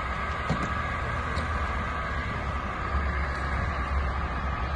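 Fire engine's motor running steadily: a low rumble with a thin, steady whine above it.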